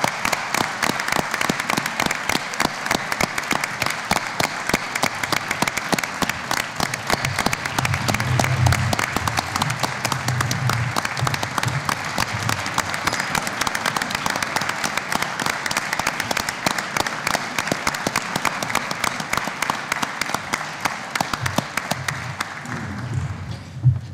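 A large assembly of delegates applauding steadily, the applause electing the only candidate by acclamation; it dies away about a second before the end.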